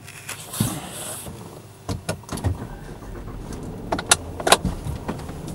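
Handling noises inside a parked car: a soft hiss, then several sharp clicks and rustles over a low rumble.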